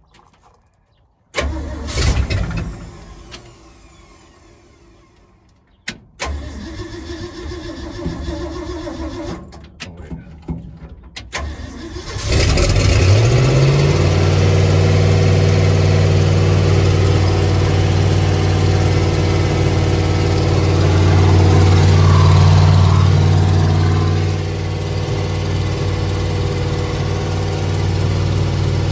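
Rebuilt Ford 360 FE V8 being cranked on the starter in uneven spells, firing and catching about twelve seconds in: its first start after the rebuild. It then runs steadily, rises a little around twenty seconds in, and settles back to a steady idle.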